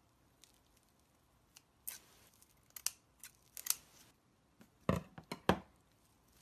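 Metal scissors snipping through clear plastic wrap around a ball of glitter slime: a handful of sharp snips with crinkling of the plastic, the two loudest coming close together near the end.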